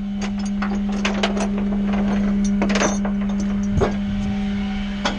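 Flatbed tow truck's engaged PTO hydraulic pump running with a steady low drone, under scattered metal clinks and clanks of tie-down chains and hooks being handled, the sharpest clank near the end.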